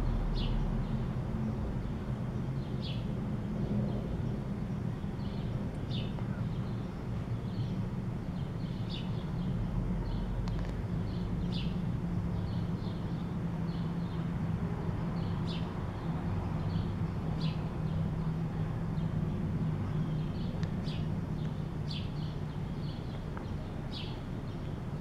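Outdoor ambience: a steady low rumble with short, high bird chirps repeating every one to two seconds.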